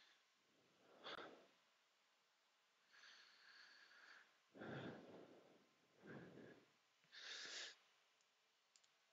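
Faint breathing and sniffing close to a microphone, about five short breaths over near silence.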